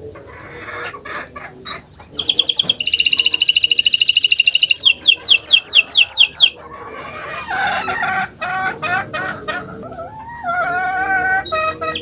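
Domestic canary singing: a few short chips, then a rising note into a fast, high trill, slower sweeping notes, lower wavering phrases, and a second fast trill starting near the end.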